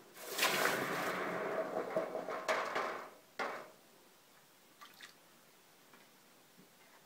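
Hot forged steel being quenched in water: a sizzling hiss that lasts about three seconds, with a short second burst a moment later.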